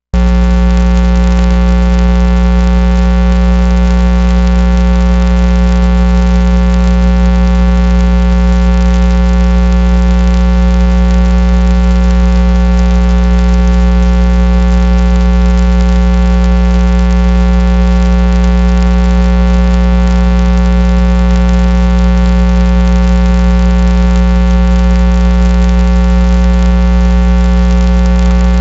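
A loud, steady electrical buzz: a low hum with many evenly spaced overtones that cuts in suddenly and holds without any change, typical of mains hum on a video transfer's audio line.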